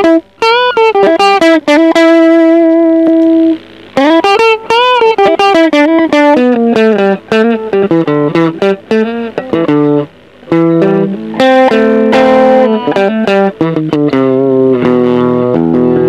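Electric guitar played through a TC Electronic HyperGravity mini compressor pedal, which is switched on partway through. The first half is single-note lead lines with string bends, vibrato and a held note. After a short gap, the second half has lower notes and chords at a more even level.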